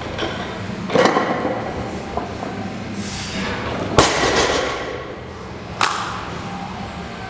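A 260 kg barbell loaded with rubber bumper plates comes down on the gym floor at the end of a deadlift set. There are heavy thuds about a second in and, loudest, about four seconds in, with a lighter knock near the end.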